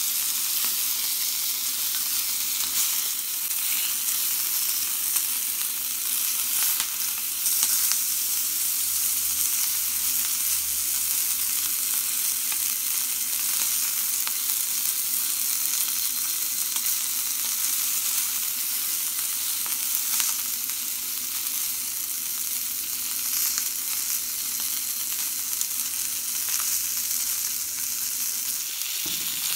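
Steak, sausage and vegetables sizzling in a small cast-iron skillet: a steady frying hiss.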